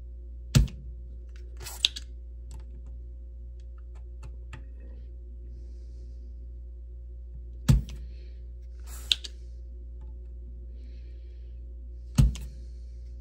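Yihua 929D-V desoldering iron's spring-loaded vacuum plunger firing with a sharp thunk three times as solder joints are sucked clear. Each thunk is followed about a second later by a shorter, hissy click, over a steady low hum.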